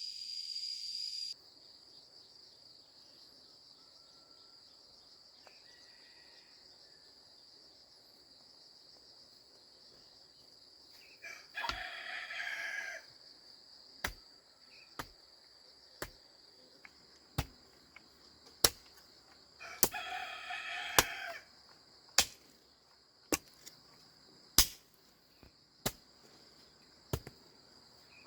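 A rooster crows twice over a steady high buzz of insects. In the second half come sharp knocks, about one a second, which are the loudest sounds. Running water is heard briefly at the start and then cuts off.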